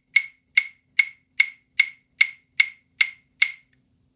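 Claves, the pair of wooden rhythm sticks, struck together in a steady even beat of sharp, bright clicks, about two and a half a second, stopping about three and a half seconds in.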